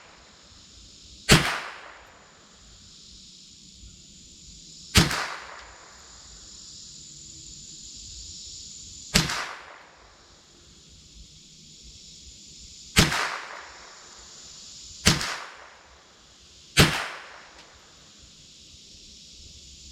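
Marlin Model 60 .22 rifle firing six single shots, a few seconds apart at an uneven pace. Each is a sharp crack with a short decaying tail.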